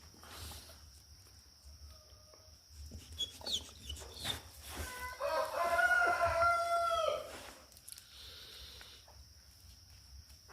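A rooster crows once, a single drawn-out call of about two seconds around the middle, preceded by a few short high chirps.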